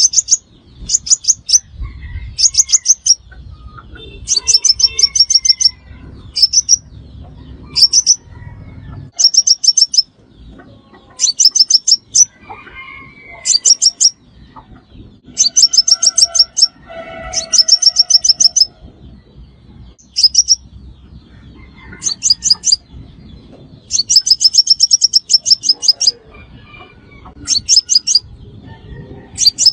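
Crimson sunbird lure song: short, loud bursts of rapid, high, twittering notes, repeated about every one to two seconds. Fainter lower calls are heard in between, around the middle.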